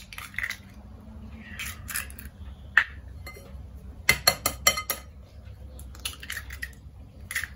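Eggs tapped against the rim of a glass bowl and cracked open: a series of sharp clicks and taps, with a quick cluster of taps about four seconds in.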